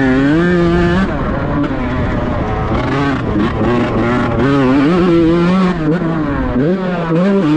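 Kawasaki Ninja grasstrack motorcycle engine revving, its pitch repeatedly rising and falling.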